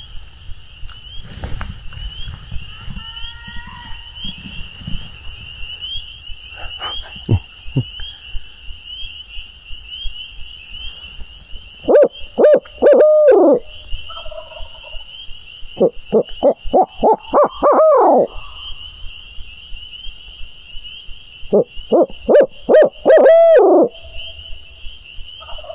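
A person imitating an owl's hoot as a turkey hunter's locator call, meant to shock a roosted gobbler into gobbling. There are three loud, close series, about a third of the way in, halfway and near the end. Each is a quick run of hoots ending in a longer, drawn-out one. A steady high trill runs underneath.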